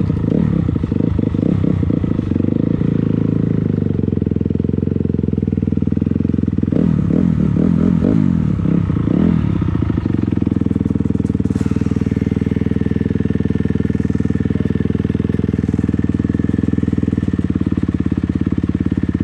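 A 250 dirt bike engine running, blipped up and down in quick bursts at the start and again about seven seconds in, then holding steady at low revs from about ten seconds in.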